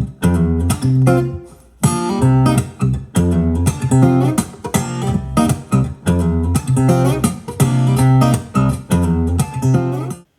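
Instrumental music of plucked acoustic guitar over a bass line, played back through a Bang & Olufsen portable Bluetooth speaker. It cuts out briefly near the end and then resumes.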